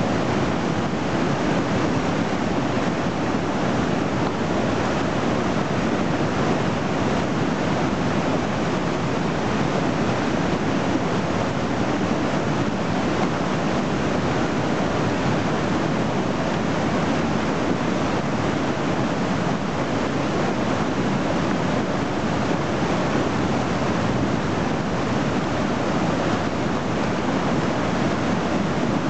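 Flooded river water rushing through rapids: a steady, unbroken whitewater noise.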